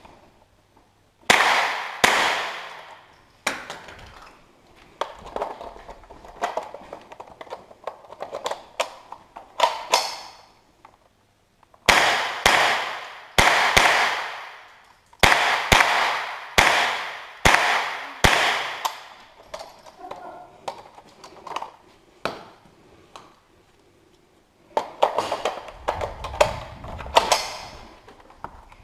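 A string of rifle shots fired in an indoor range, each a sharp crack with an echoing tail off the walls, coming in quick runs with short pauses between strings.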